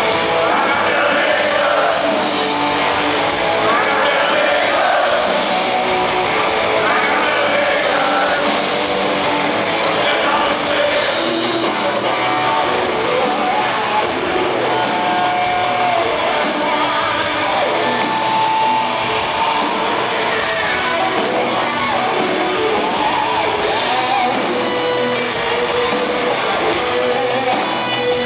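Live rock band playing a song with electric guitar, drums and sung vocals, recorded from inside the audience in a concert hall.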